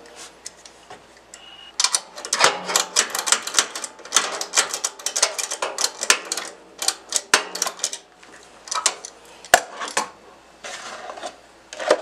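Ratchet wrench clicking in quick runs of strokes with short pauses as the engine's oil drain plug is tightened down.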